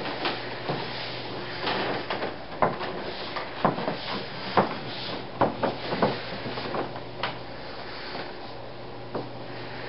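High-heeled shoes knocking on a hardwood floor in irregular steps, the knocks densest in the middle as the walker comes closer, over a steady low hum.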